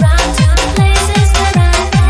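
Electronic dance track with a fast, steady beat of booming kick drums that drop in pitch on each hit, under sustained synth notes.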